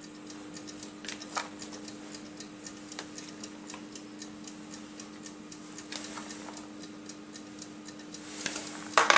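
Faint light ticks and patter of shredded cheese being sprinkled by hand onto a pizza, a few per second and uneven, over a steady low hum.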